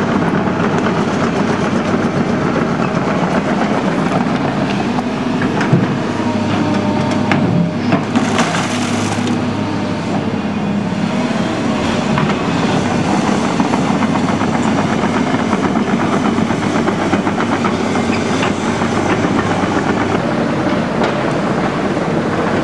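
Tracked hydraulic excavators digging out spoil, their diesel engines running steadily under frequent clanks and cracks of buckets, tracks and rubble, with a brief hiss about eight seconds in.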